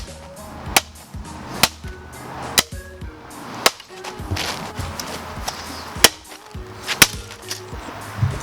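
About seven sharp whacks, roughly one a second with a pause in the middle: the Xbox One power brick being struck hard to break its outer case open. Background music plays under them.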